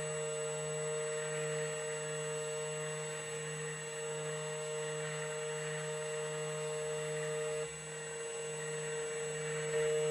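2M2 Tank2 CNC key cutting machine running mid-cut, a steady motor whir with a constant hum and light hiss; one of the tones drops out about three-quarters of the way through.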